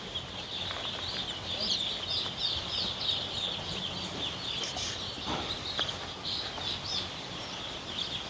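A large flock of poultry chicks peeping continuously, many high, short chirps overlapping. There is a single brief knock about five seconds in.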